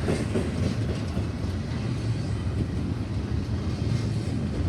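CSX mixed freight train's cars rolling past, a steady low rumble of steel wheels on the rails.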